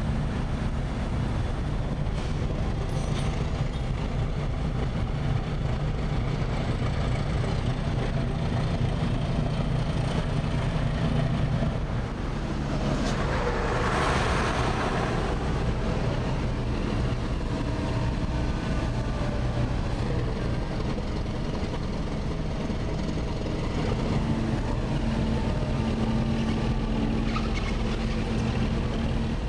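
Steady low drone of idling diesel engines. About halfway through, a truck passes close, its noise swelling and fading over a few seconds.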